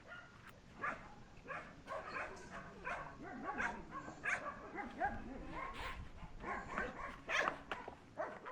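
Dog barking and yipping: short, repeated barks, about one or two a second.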